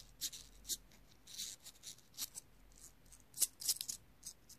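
Faint, scattered small clicks and light scraping as fingers handle the little plastic wind-up mechanism of a chattering-teeth toy and the metal pin through it, with a short cluster of clicks near the end.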